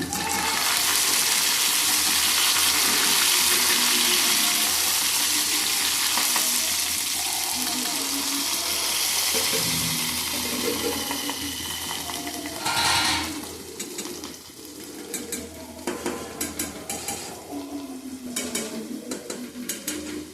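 Food hitting hot oil in a pan and sizzling loudly, the sizzle slowly dying down over about twelve seconds. A short louder flare of sizzling follows, then a softer sizzle with utensils clicking and scraping against the pan as it is stirred.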